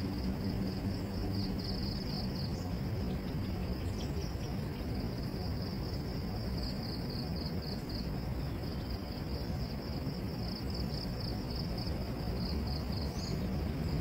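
Insects trilling steadily at a high pitch, the trill breaking into fast pulses in several stretches, over a steady low rumble of background noise.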